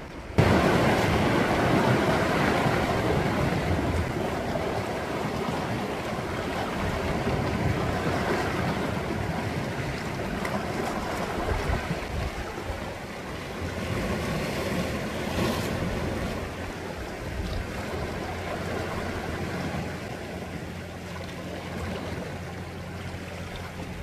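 Sea waves surging in against shoreline rocks: a rushing wash of surf that comes in suddenly at the start, then ebbs and swells again a couple of times.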